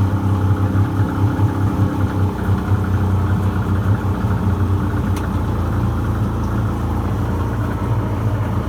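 1996 Johnson 40 hp oil-injected two-stroke outboard motor idling steadily while it warms up after a cold start. Its note turns rougher about two seconds in.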